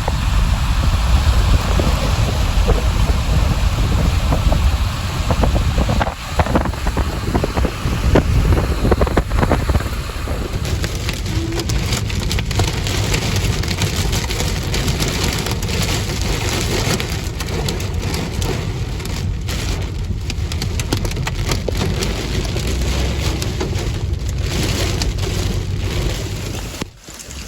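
Heavy rain pelting a moving vehicle's roof and windshield, a dense patter of drops over a steady low road and wind rumble. It dips sharply near the end.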